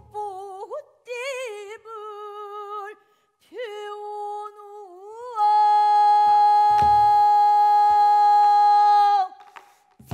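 Female pansori singer singing in the plaintive gyemyeon mode, first in short wavering notes with a wide vibrato, then holding one loud, steady high note for about four seconds before letting it fall away. A few low drum strokes from the gosu's buk sound under the voice.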